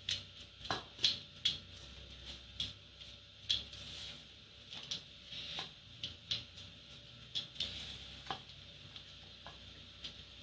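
Wooden spatula stirring a crumbly flour-and-oil mixture in a stainless steel bowl, with irregular scrapes and clicks of the spatula against the metal.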